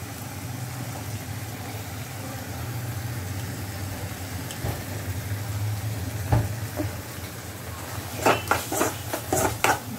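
Masala mixture sizzling in a pan over a high flame, under a steady low hum. From about eight seconds in, a spoon knocks and scrapes against the pan again and again as the mixture is stirred and mashed.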